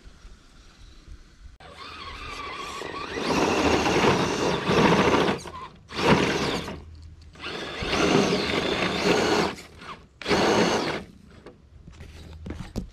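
Electric motor and geared drivetrain of an Element RC Enduro Trail Walker crawler whining in four bursts of throttle, the first and longest starting about a second and a half in, its tyres spinning in the dirt. The truck is stuck in a sandy rut and cannot climb out without a winch.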